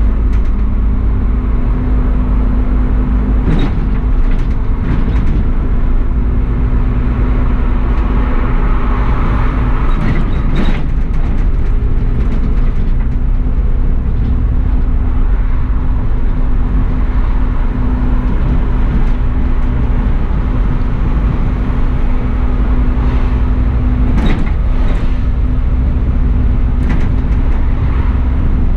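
Bus engine running steadily with road noise, heard from the driver's cab, with a steady hum that stops near the end and a few short knocks.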